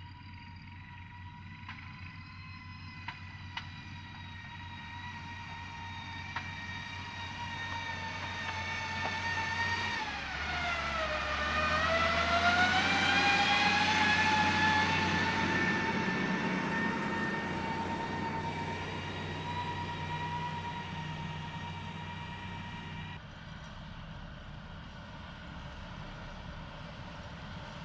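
Heavy diesel construction machine running with a high whine over its engine rumble. About ten seconds in, the pitch drops, then climbs back up as the sound grows louder, then eases off again.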